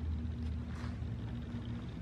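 Low steady hum under faint handling noise from cabinet assembly: a soft, brief scrape a little under a second in as hardware is fitted into the particleboard cabinet.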